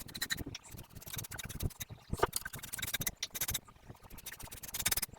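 Brush bristles scratching and ticking on bare wood as shellac is brushed on to seal the piece.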